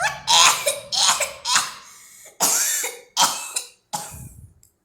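A person coughing in a fit of about six harsh coughs spread over four seconds, each one loud at first and then trailing off.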